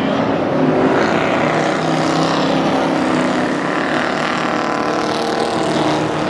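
Ford Crown Victoria stock cars' V8 engines running at racing speed on a dirt oval: a steady engine drone that rises a little in pitch in the second half.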